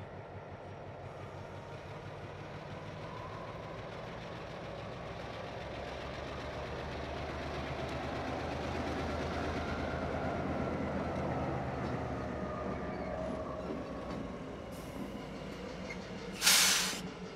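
Diesel locomotives, a Central California Traction switcher leading a CN unit, rolling slowly past with their engines running at low throttle. The hum grows louder as they come alongside and then eases off. Near the end there is a short, loud hiss of released compressed air.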